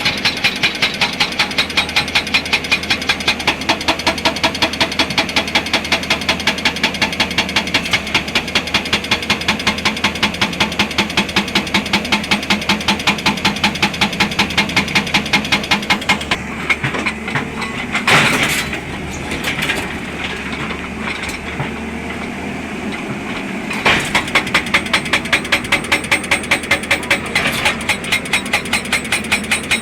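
Excavator-mounted hydraulic rock breaker hammering rock with rapid, evenly spaced blows over the engine's steady running. It stops for several seconds a little past halfway, with a loud clank, then starts hammering again.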